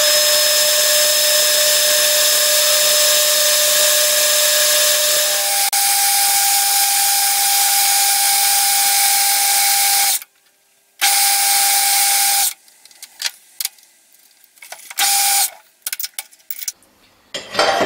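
Metal lathe running while an insert tool faces and turns a bronze casting held in the chuck: a loud steady hiss with a steady whine whose pitch steps up about five and a half seconds in. The lathe stops about ten seconds in, runs again briefly, then comes in short bursts.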